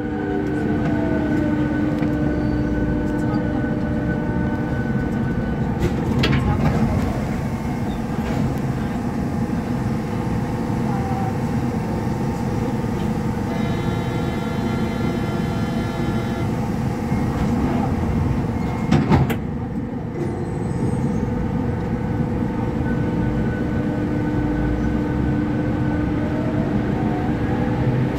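Lille VAL rubber-tyred automated metro train running through a tunnel, heard from on board: a steady rumble of the running gear with the whine of the traction motors, and a couple of sharp knocks. Near the end it pulls into a station.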